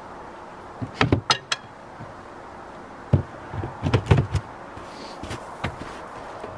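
Wooden beehive covers and boards knocking against the hive body as they are taken off and set back on: a few sharp knocks about a second in, then another cluster of knocks about three to four seconds in.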